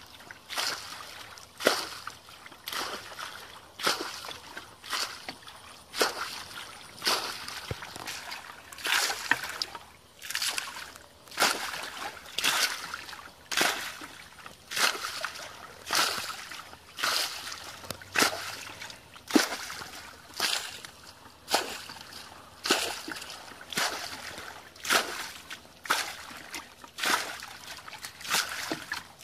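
Muddy water being bailed from a small pool with a plastic bucket. Each bucketful is scooped and thrown out with a splash, about once a second in a steady rhythm.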